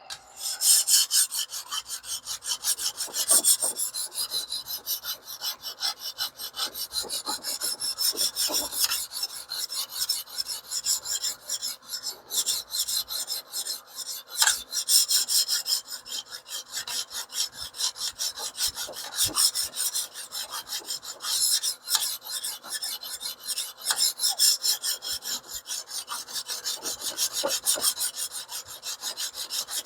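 Coarse 150-grit stone on a TS Prof Kadet Pro guided sharpener, wet with lapping fluid, stroked rapidly back and forth along a small cleaver blade with a steady rasping. It is setting a 17-degree edge bevel and has not yet raised a burr.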